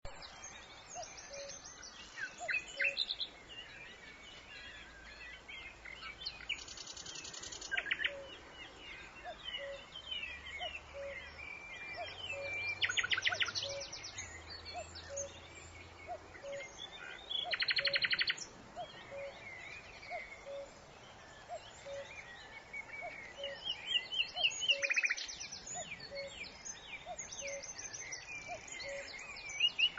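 Several birds singing: rapid, high trills of about a second each come again and again, with scattered chirps between them. A faint low note repeats at an even pace underneath.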